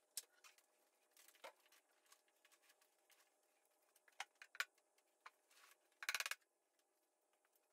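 Faint clicks and knocks of an epoxy table mold and a hammer being handled on a wooden workbench, with a short rattle about six seconds in.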